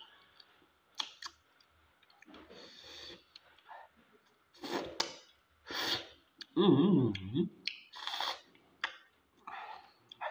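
Close-up mouth sounds of eating fish and pasta by hand: chewing and lip-smacking with sharp wet clicks. About two-thirds of the way through comes a short, loud voiced sound lasting about a second.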